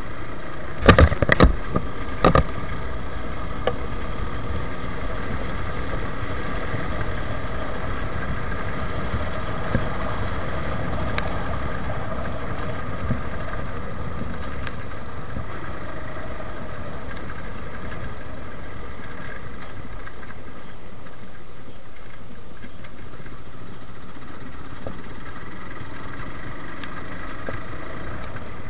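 Suzuki Gixxer motorcycle's single-cylinder engine running steadily under way, with continuous road and wind noise. A few sharp knocks sound about a second in.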